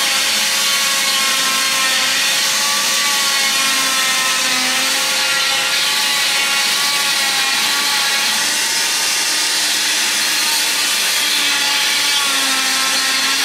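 Oscillating cast saw running with its dust-extraction vacuum, cutting along a leg cast: a loud, steady whirring noise with a faint whine that wavers slightly in pitch as the blade works through the cast.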